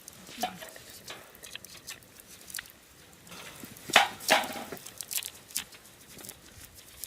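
Firewood burning in a wood grill, crackling with scattered sharp pops, and a louder clatter about four seconds in.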